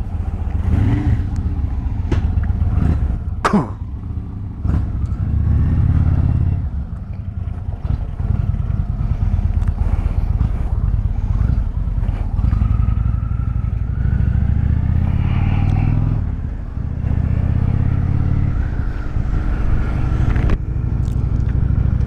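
V-twin cruiser motorcycle engines running as the bikes pull away and ride at low speed, the engine note dropping off briefly a few times.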